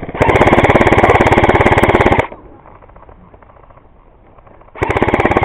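ICS L86 airsoft electric gun firing on full auto: two long, rapid bursts, the first about two seconds, the second about a second near the end.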